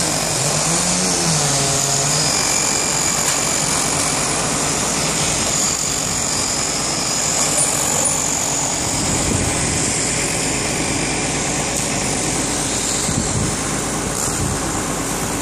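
Fire truck's engine running steadily.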